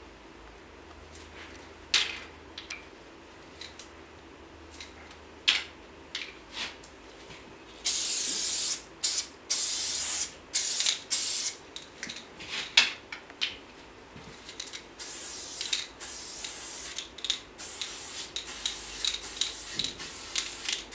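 A few sharp clicks, then a high-pressure Arton 600 ml spray paint can with a super fat cap spraying about 8 seconds in. It gives short, separate bursts at first, then longer strokes with brief breaks.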